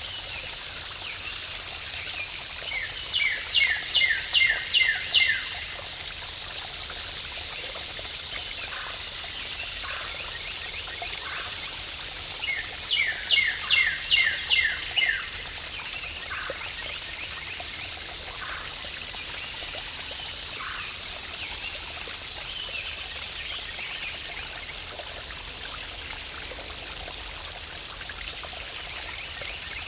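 Steady rush of falling water from a waterfall, with a bird singing over it twice, each phrase a quick run of about seven descending notes lasting about two seconds, a few seconds in and again about halfway through.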